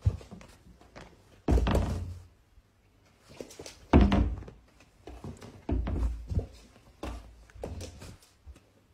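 A husky puppy jumping and pouncing about, making a series of dull thumps and knocks, four or five loud ones spread over several seconds.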